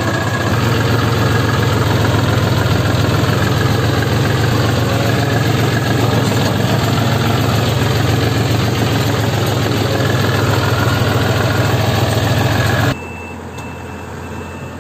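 Heavy diesel engine running loud and steady close by. Near the end it drops suddenly to a quieter engine idling, with a series of short, evenly spaced high beeps like a reversing alarm.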